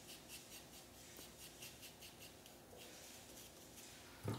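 Paintbrush mixing acrylic fabric paint on a palette tray: faint, quick scratching of the bristles at about four strokes a second, blending red and white with a little water into a lighter red. The strokes stop about three seconds in, and there is a short low knock just before the end.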